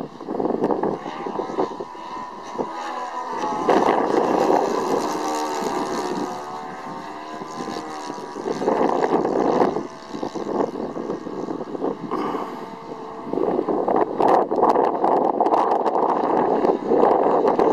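Saito 82 four-stroke glow engine of a radio-control model aircraft in flight overhead. Its note rises and falls as the plane passes and manoeuvres, with gusts of wind buffeting the microphone.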